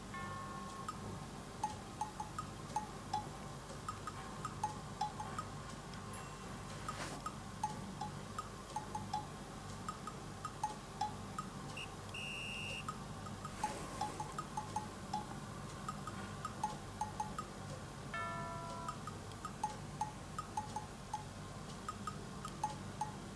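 Light background music: a steady stream of short tinkling notes with a few brief held tones, over a soft steady low hum.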